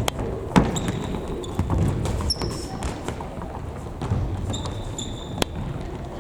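Futsal game on an indoor gym court: sharp thuds of the ball being kicked and bouncing, about half a second in and again near the end, with short high squeaks of shoes on the floor and players' voices in the background.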